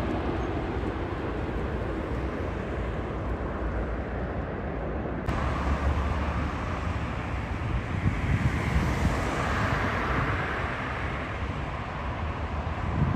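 Jet airliner engine noise on landing approach: the rumble of a twin-engine widebody fading as it moves away, then, after an abrupt change, the distant rumble and rising hiss of another approaching airliner, with wind buffeting the microphone.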